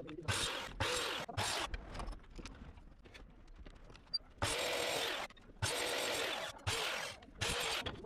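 A workshop tool switched on and off in seven short bursts, each a loud hiss over a steady hum. Three come close together at the start, and four more follow from about halfway through.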